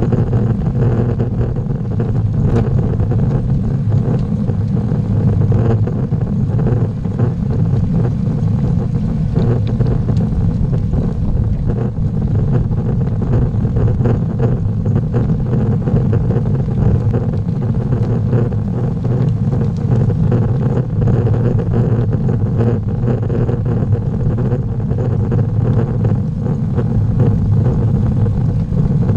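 Steady rumble of wind and road noise picked up by a camera mounted on a road bicycle as it climbs behind other riders, loud and unbroken with no distinct events.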